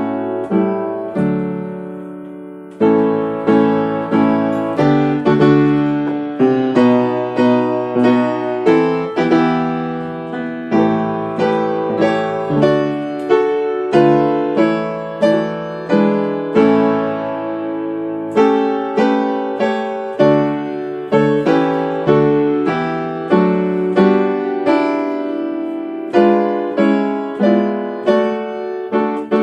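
Solo piano playing a slow hymn tune in full chords, each chord struck and left to ring as it fades.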